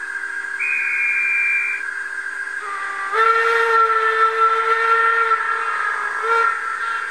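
Sound decoder of a Roco H0 model BR 85 steam locomotive playing a whistle over a steady hiss: a short high toot about half a second in, then a longer, lower whistle of several tones from about three seconds, and a brief toot near the end.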